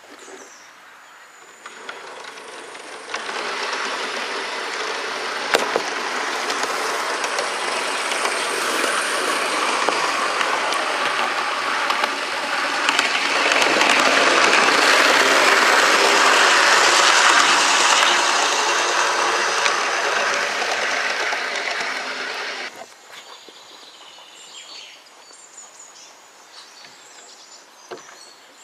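Garden-railway model train running along the outdoor track, its wheels and motor making a steady rolling noise. It builds up after the first second or two, is loudest in the middle as it passes close, and drops away sharply a few seconds before the end.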